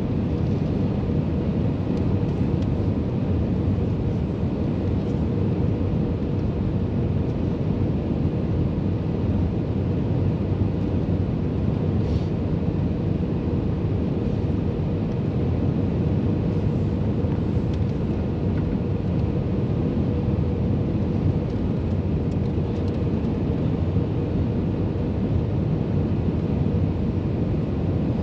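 Airbus A320-232 cabin noise during landing: a steady low rumble of its IAE V2500 engines and rushing air, with a faint steady hum above it.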